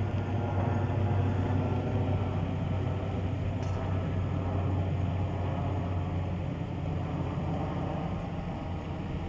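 Steady low motor hum under a faint hiss, even in level, like an engine running at a distance.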